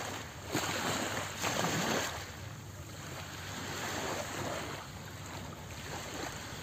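Small waves washing at the shoreline, with wind on the microphone; the wash and wind are louder in the first two seconds, then settle to a steady hiss.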